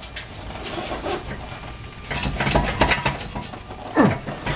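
A metal wrench clinking and scraping on a rusted exhaust flange nut, which is too tight to turn. Scattered taps come first, then a denser run of clinks in the middle. Near the end there is one loud, short sound that slides steeply down in pitch.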